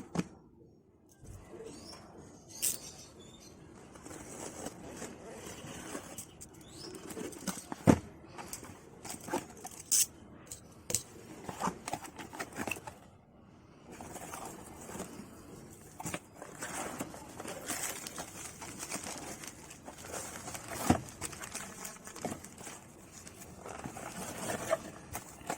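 Package being unboxed by hand: rustling of plastic and paper wrapping with scattered knocks and clicks as things are handled and set down.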